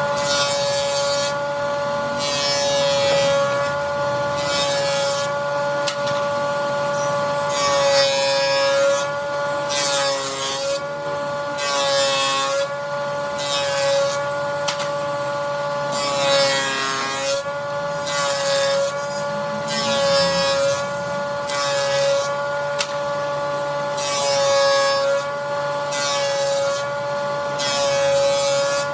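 Electric woodworking power tool with a steady high motor whine, cutting or sanding wood in repeated passes that add bursts of rasping noise; the pitch sags slightly now and then under load.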